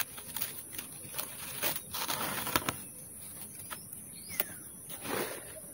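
Dry coconut-palm leaf strips rustling and crackling in a run of small clicks as hands wrap and tie them around the coconut flower spadix, with a louder rustle just past the midpoint and another near the end.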